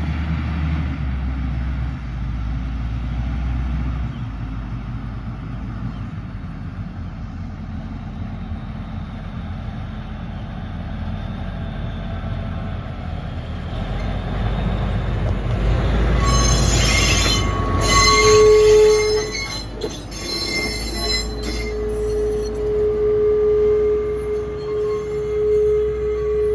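Queensland narrow-gauge sugarcane train, diesel locomotive Tully-7 hauling loaded cane bins, approaching: a low engine rumble grows louder. From about two-thirds in, the wheels squeal and clatter, with a long steady tone over them.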